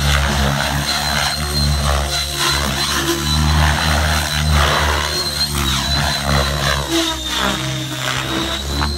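Align T-Rex 700E electric RC helicopter in aerobatic flight: rotor blades beating and a steady high whine from the motor and gears. Near the end the pitch sweeps up and down as it manoeuvres.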